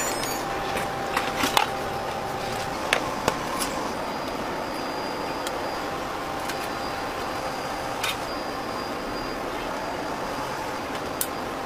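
Steady hum of a commercial kitchen's ventilation, with a few sharp clinks of a metal spatula and utensils against stainless-steel trays.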